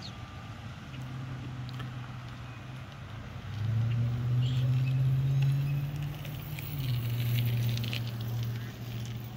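A low, steady engine drone that gets much louder about three and a half seconds in and settles to a lower pitch near the seven-second mark.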